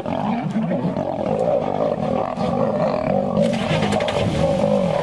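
Male lions fighting, one chasing the other, with loud unbroken snarling and growling.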